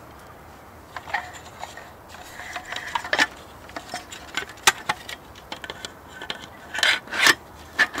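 Folding camp table being assembled by hand: the tabletop panel rubbing and scraping against the folding leg frame, with several sharp clicks and knocks as the parts are fitted together, two of them close together near the end.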